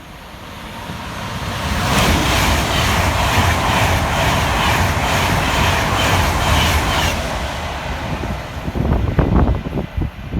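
Class 390 Pendolino electric train passing through at speed. Its rushing noise builds over about two seconds and holds loud with a regular pulsing as the carriages go by, then dies away about seven seconds in.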